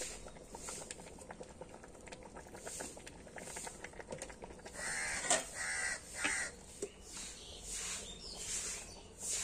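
Crows cawing, several harsh calls in quick succession about halfway through, over a faint steady crackle.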